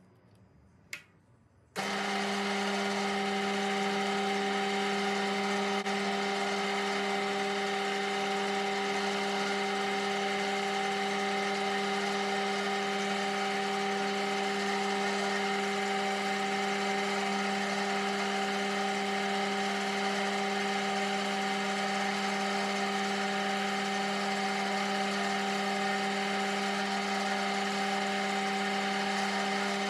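Metal lathe switched on after a sharp click, starting abruptly just under two seconds in, then running steadily with a constant hum and whine from its motor and gears as the chuck spins the steel bar.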